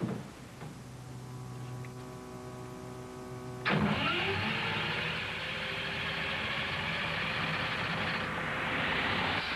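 A switch clicks and the giant Tesla coil's power equipment starts up with a steady electrical hum of several tones that slowly grows louder. About four seconds in, the coil fires: a sudden loud, harsh buzzing crackle of high-voltage spark discharge that keeps going.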